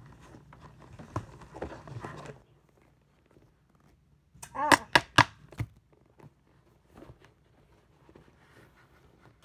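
Rustling and handling noise as things are rummaged through inside a zippered backpack, then a quick cluster of sharp clicks and knocks about halfway through.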